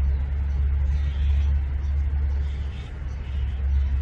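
Steady low rumble, with faint voices now and then.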